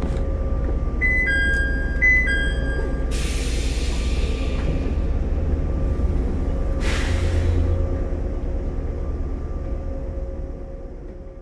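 Interior sound of a JR 115-series electric train car (KuMoHa 114-501) at the end of its run, with a steady low hum from its onboard equipment. About a second in, a two-note electronic chime sounds twice. Two hisses of compressed air follow, about three and seven seconds in, and the sound fades out near the end.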